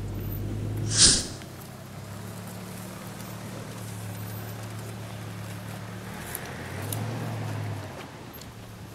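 A motor vehicle's engine running steadily with a low, even hum. About a second in comes a short, loud burst of noise.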